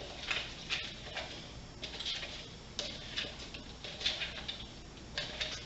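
Hands kneading and squeezing glue slime mixed with pumpkin seeds in a bowl: irregular sticky clicks and crackles, a few a second.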